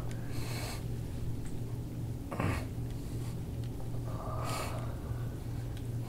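A man breathing hard in sharp, noisy breaths about every two seconds while deep elbow pressure is held on his arched back, with a steady low hum underneath.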